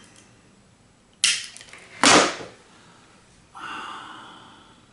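Over-long fret wire being nipped off with fret cutters: two sharp clicks about a second apart, the second louder, followed near the end by a brief fading ringing tone.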